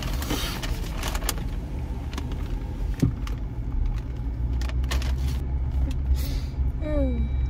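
Inside a moving Jeep: steady low engine and road rumble, with a paper takeout bag rustling now and then, mostly in the first second or so. A short falling voice-like hum comes near the end.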